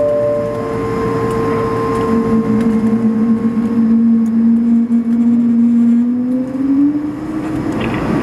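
Airbus A220-300's Pratt & Whitney PW1500G geared turbofan engines heard from inside the cabin while taxiing, a steady whine with several held tones. A lower tone comes in about two seconds in and rises slightly near the end as thrust changes.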